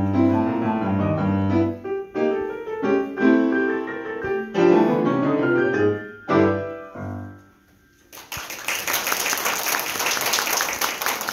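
Grand piano played four hands, the closing bars of a duet ending on final chords that die away about seven seconds in. Audience applause breaks out about a second later and continues.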